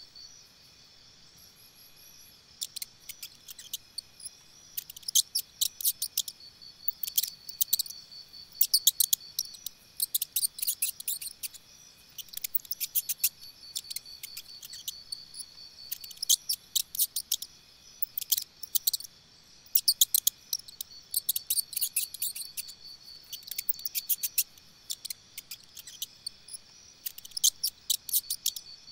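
Insects chirping in rapid, clicking bursts every second or two, over a steady high-pitched insect drone.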